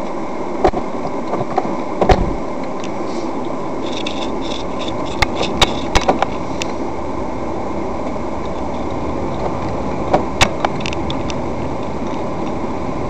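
Steady in-cabin noise of a car driving slowly on a wet street: engine and tyre hum, with a few scattered short clicks and taps.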